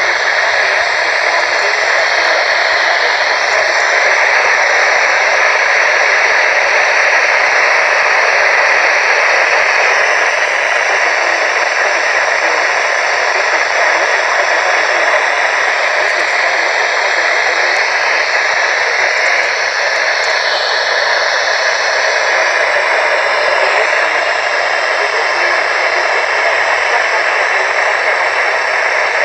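Steady radio static: an even hiss from a radio receiver tuned to a weather-band station, with no voice clearly heard through it.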